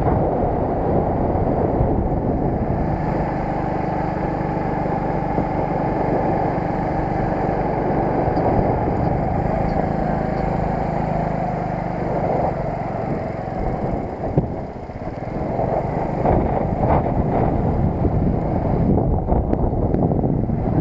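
Underbone moped riding along, its small engine humming under heavy wind buffeting on the microphone. The sound dips briefly about two-thirds of the way in, then the wind rush comes back up.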